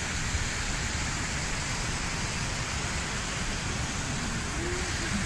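Steady rushing of a mountain stream flowing over rocks, with a choppy low rumble on the microphone.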